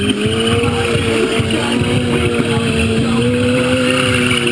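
Sport motorcycle engine held at high, nearly steady revs during a stunt routine, its pitch rising and falling only slightly.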